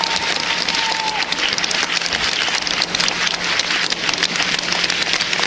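Arena audience applauding: many hands clapping in a dense, steady patter.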